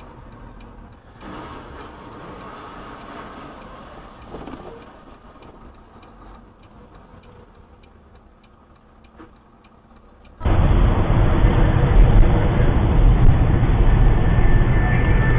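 Vehicle road noise recorded by a dashcam: quiet cab noise with faint scattered clicks, then after about ten seconds a sudden change to loud, steady low rumble of engine and tyres on the road.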